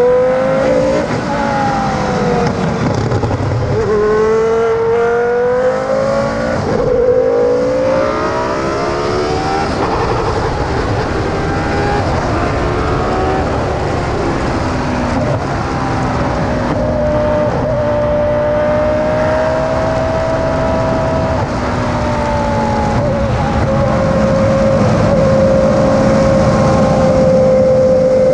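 Formula 1 car's V10 engine at high revs. Its pitch climbs and drops sharply several times in the first few seconds, as with shifts and lifts, then holds a near-steady high note through the second half.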